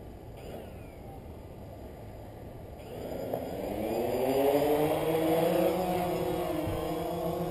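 DJI Phantom quadcopter's motors and propellers buzzing: faint at first, then about three seconds in the buzz rises in pitch and gets much louder as the drone throttles up, settling into a steady whine of several tones at once.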